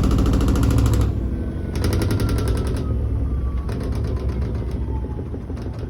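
Koenic KWM 8212 A INV top-loading washing machine spinning, its lid rattling rapidly against the cabinet in spells, with a faint whine falling in pitch. The lid does not close properly, and that is what rattles.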